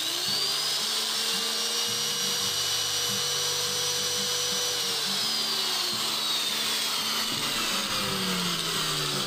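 Electric angle grinder, the older Modern model, spinning up with a rising whine and running without load at a steady high pitch. About five seconds in it is switched off and winds down with a slowly falling whine.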